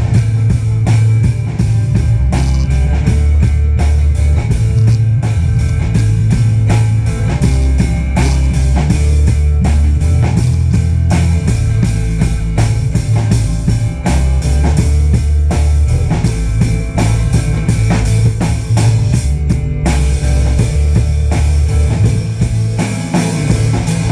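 Rock band playing an instrumental break: a steady drum-kit beat over a heavy bass line, with electric guitar.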